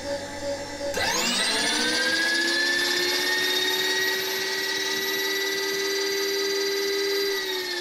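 The X-axis power feed motor of a Warco WM18 milling machine drives the table along. It starts about a second in with a quickly rising whine, runs as a steady whine, and drops in pitch near the end as it slows.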